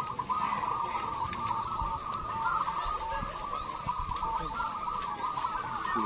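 Many caged zebra doves (perkutut) cooing at once, their overlapping coos forming a continuous chorus.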